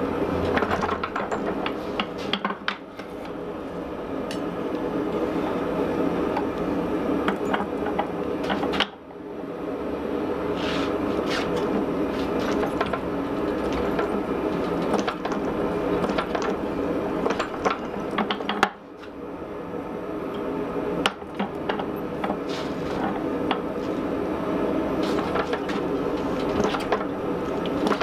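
Forging press running steadily while its round fuller dies squeeze the red-hot steel head of a ball-peen hammer, with scattered light ticks over the drone. The sound drops away sharply for a moment twice, about 9 and 19 seconds in.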